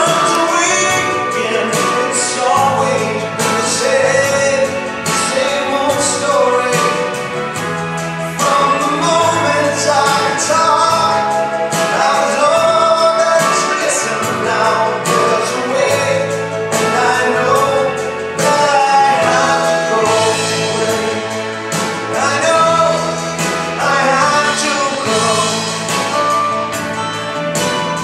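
A recorded pop ballad playing: singing with instrumental accompaniment.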